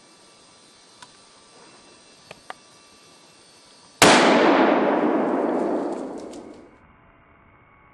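A single hunting-rifle shot about four seconds in: a sudden, loud report that rolls away and fades over about two and a half seconds. A few faint ticks come before it.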